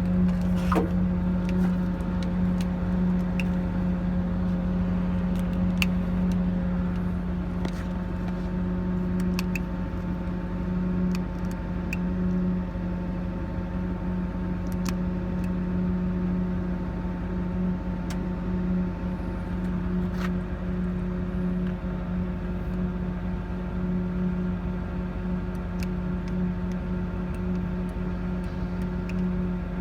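Diesel engine idling steadily, a constant hum with an unchanging tone, with a few faint clicks and knocks over it.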